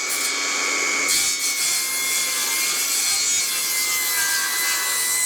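Electric power saw running at full speed with a steady high whine, cutting through a wooden stud.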